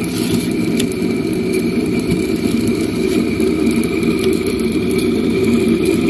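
Homemade Bedini generator's brushed fan motor running steadily at speed, a whir with a thin, steady high whine over it; the motor is spun up and running with no lamp load. A light click just under a second in.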